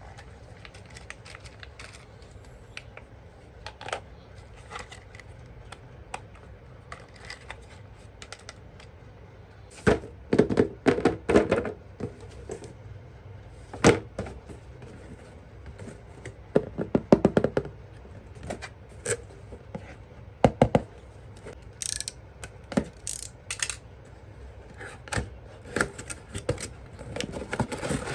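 Plastic toy parts and packaging being handled: irregular clicks, taps and knocks, coming in clusters with quieter gaps between.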